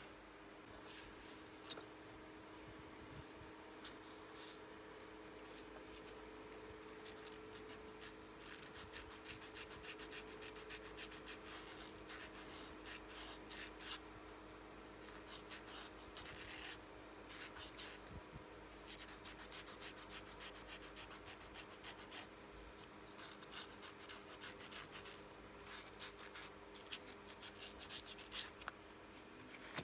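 A 400-grit sanding sponge is rubbed over a small wooden wheel hub in runs of quick, short, scratchy strokes, with a faint steady hum underneath.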